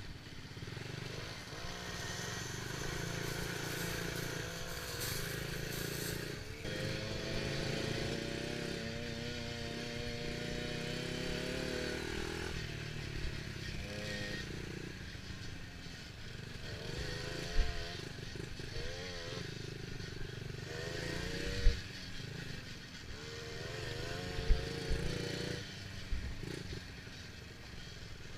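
Dirt bike engine revving up and down as it rides the track. Three sharp knocks stand out in the second half.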